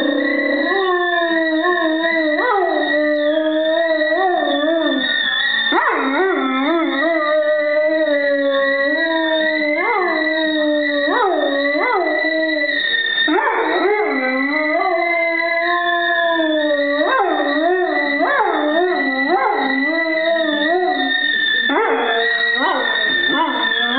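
A dog howls along with a whistling stovetop tea kettle. The kettle holds one steady high whistle throughout, while the dog's howls rise and fall in long wavering notes broken by short yips.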